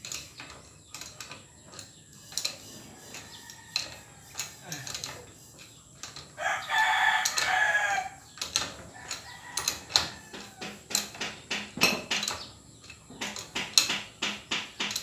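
A rooster crows once, for about two seconds, some six seconds in; it is the loudest sound. Scattered light metal clicks and clinks of hand tools on a bicycle crank come and go throughout.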